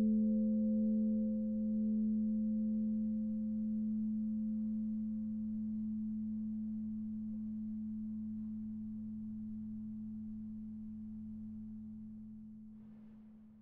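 Church bell's tone dying away after the ringing stops: a low hum note lingers and slowly fades with a gentle wavering. The higher partials fade out first, and the sound drops away near the end.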